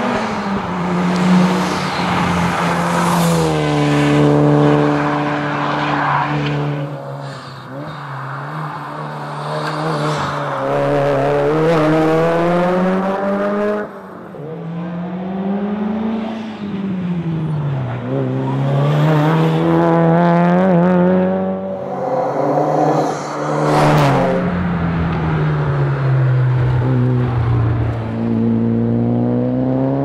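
Mitsubishi Lancer Evolution VIII rally car's turbocharged four-cylinder engine revving hard at racing pace, its pitch repeatedly climbing as it accelerates and dropping at gear changes and braking, over several passes.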